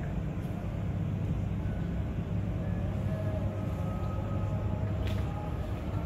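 Steady low rumble of outdoor city ambience heard from a high rooftop, with a few faint tones over it and a single short click about five seconds in.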